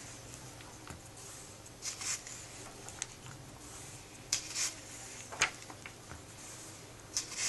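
Glossy comic-book pages being turned by hand: four short paper swishes, one every second or two.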